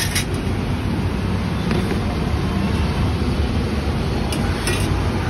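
A steady low rumble, with a few light clinks of a steel ladle and plate near the start and again about four seconds in.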